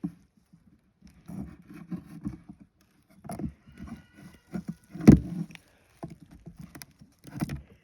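Irregular knocks and scraping from handling a wooden beehive box and its frames, with one heavy knock about five seconds in.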